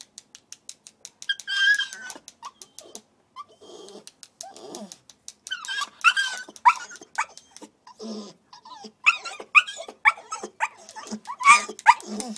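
Staffordshire bull terrier puppy crying at a door to be let back in: a string of short, high-pitched sliding cries that come thicker in the last few seconds.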